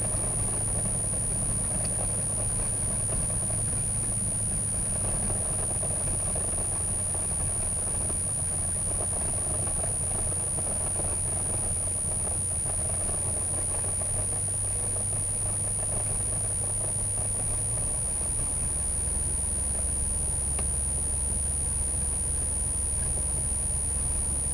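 Cessna 182G Skylane's six-cylinder Continental O-470 engine running at low power while the aircraft rolls on the ground, heard inside the cockpit. Its pitch steps lower about three quarters of the way through as the power comes back further.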